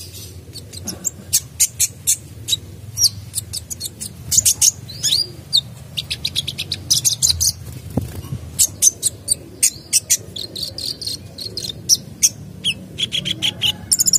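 Male sunbird singing: rapid runs of high-pitched chips and short trills in bursts, with brief pauses between them.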